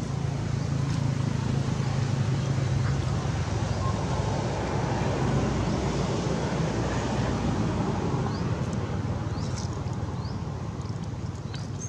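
Steady outdoor background noise: a low rumble under an even hiss, with a few short high chirps near the end.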